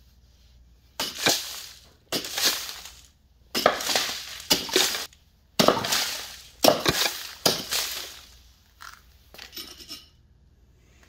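A hand-made Viking-style axe chopping seven times into a crumbly block, about a second apart, each blow breaking off pieces that rattle and scatter. Near the end there are a few lighter clatters of debris and the axe.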